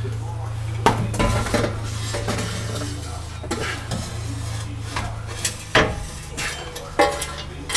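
Metal exhaust pipe being handled and worked into place under a pickup: scraping with several sharp metallic clinks and clanks.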